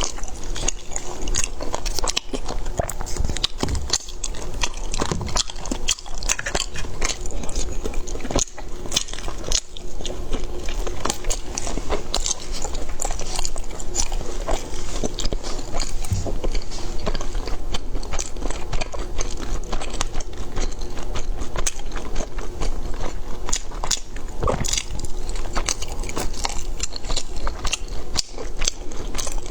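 Close-miked chewing and biting of food, a dense run of small crunchy clicks and wet mouth sounds.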